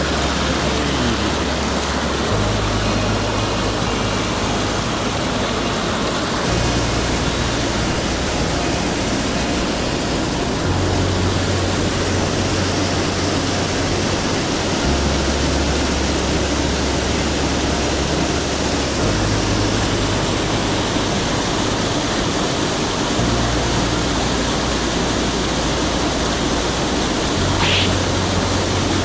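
Steady rush of a mountain stream's flowing water, with background music whose low bass notes change every few seconds.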